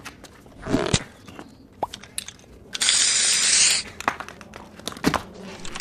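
Scattered short clicks and a brief noisy rustle a little under a second in, then a steady hiss lasting about a second near the middle.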